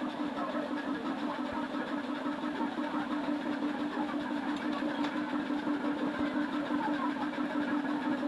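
Steady mechanical hum of a running motor or engine, with a rapid flutter and an even level throughout.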